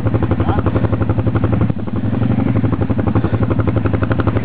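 ATV engine running at low, steady revs with an even, rapid exhaust beat, dipping briefly about a third of the way in.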